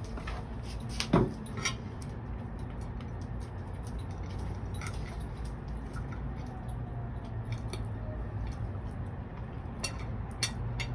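Scattered small clicks and clinks of eating, the sounds of cutlery and a plate, with the sharpest about a second in and a few more near the end, over a low steady hum.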